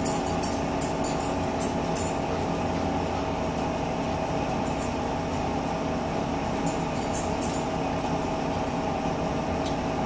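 Steady mechanical hum with a couple of held tones, over scattered light clicks of forks on plates during a meal.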